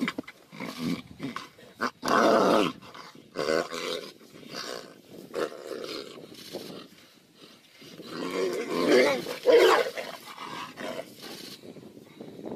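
Tigers growling and snarling as they fight, with rough bouts throughout and two loud snarling roars, one about two seconds in and a longer one near the end.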